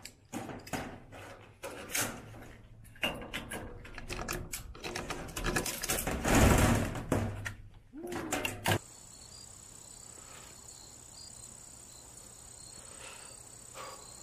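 Metallic clicks, clacks and knocks of an AR-pattern rifle being handled and worked on a metal table, parts set down and knocked against the tabletop. About two-thirds of the way through this cuts off suddenly to a steady, quiet outdoor hum with a thin high whine.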